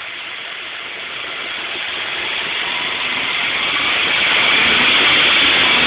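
Car engine revved up from idle: it grows steadily louder over a few seconds, then holds at higher revs.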